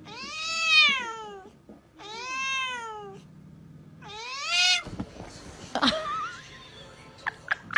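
Tabby cat meowing at another cat: three long, drawn-out meows that rise then fall in pitch, and a shorter rising one about four seconds in. A few sharp clicks and knocks follow in the last few seconds.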